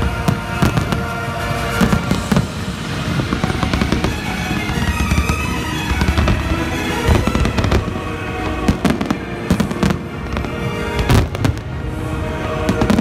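Aerial fireworks display: shells bursting in a rapid, irregular run of bangs and crackles, with music playing underneath.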